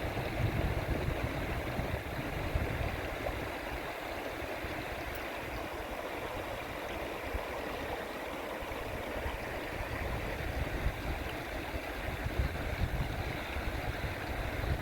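River water running steadily, with low gusts of wind buffeting the microphone, heaviest near the start and again near the end.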